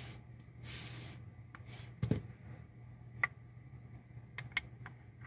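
Steel lathe-chuck soft jaws being handled, knocking and clicking against each other: a dull knock about two seconds in, a sharper metallic click a second later, and a few light clicks near the end, over a steady low hum.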